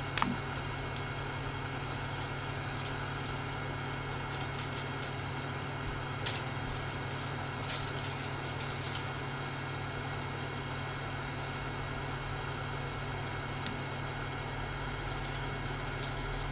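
Steady mechanical hum, with a few light clicks and taps of small tools about six and eight seconds in.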